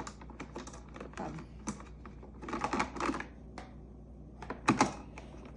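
Small plastic clicks and knocks of a De'Longhi coffee maker's filter being fitted back and locked into place, with a louder cluster of knocks about two and a half seconds in and a pair of sharp clicks near the end.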